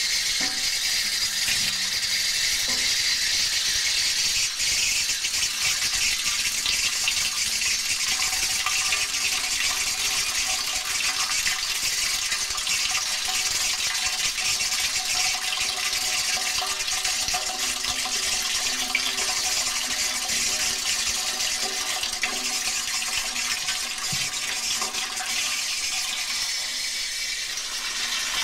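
Steady rush of water with a fine flickering texture. Faint steady tones sit underneath from about eight seconds in.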